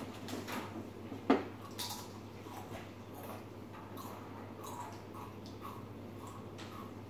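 Faint crunching and small clicks of Doritos tortilla chips being chewed, with one sharper click about a second in, over a low steady room hum.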